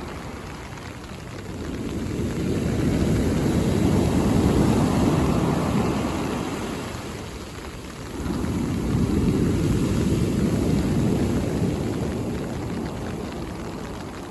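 Mediterranean sea waves breaking on the shore, twice. The first wave builds over a couple of seconds and washes out. The second comes in suddenly about eight seconds in and slowly dies away.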